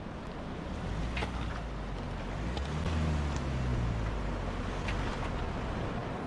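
Mahindra Scorpio S11 4WD's diesel engine running at low speed, its revs swelling briefly about three seconds in, with a few faint knocks.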